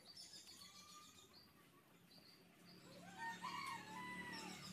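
Faint birdsong: thin high chirps of small birds, and a rooster crowing once about three seconds in, its call rising, holding and falling.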